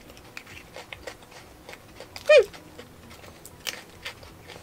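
Quiet chewing of a strawberry Pocky biscuit stick: scattered faint crunchy clicks. About halfway through, the eater gives one short, loud 'mm' that falls in pitch.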